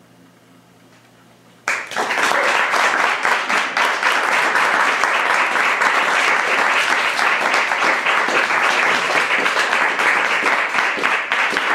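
A vibraphone's last low chord dies away, pulsing faintly. Then, a little under two seconds in, an audience suddenly breaks into loud, steady applause.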